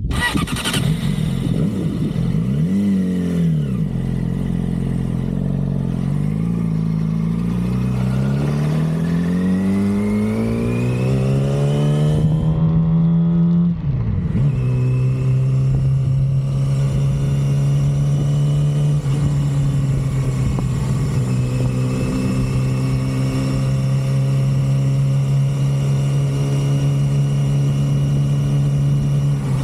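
2006 Yamaha YZF-R6's stock inline-four engine under way: a short rise and fall in revs, then a long climb in pitch under acceleration, a sudden drop at a gear change about fourteen seconds in, then a steady cruise.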